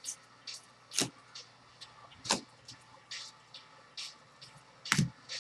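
Baseball trading cards being slid off a stack and shuffled by hand: short swishes and clicks every half second or so. The loudest come about a second in, just after two seconds and near five seconds.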